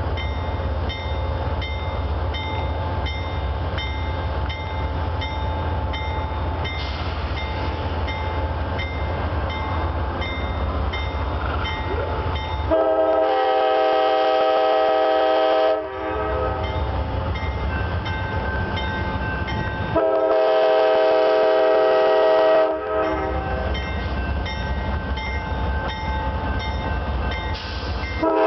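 Amtrak GE Genesis diesel locomotives running as the train rolls slowly past, with a light ringing about twice a second. The locomotive horn sounds two long blasts of about three seconds each, the first about halfway through and the second a few seconds later, and a short blast at the very end.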